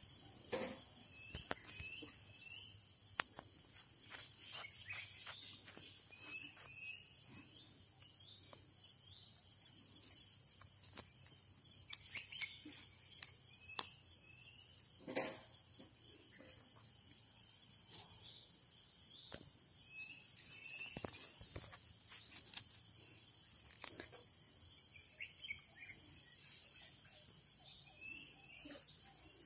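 Faint outdoor ambience: a steady high-pitched insect drone, with short bird chirps every few seconds and scattered faint clicks.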